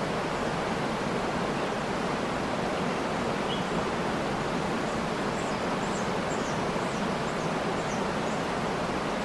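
Steady rushing of a waterfall. Faint high bird chirps come through once about a third of the way in and then several times in the second half.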